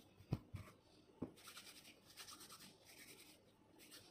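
Faint rubbing of bare hands rolling sticky shrimp paste into a ball between the palms, with three soft pats in the first second or so.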